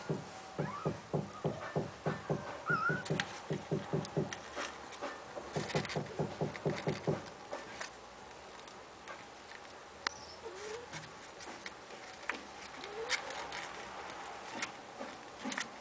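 Mother cat licking and grooming her three-week-old kitten: a rhythmic lapping at about four licks a second that stops about seven and a half seconds in. After that, quieter shuffling and a few faint short squeaks.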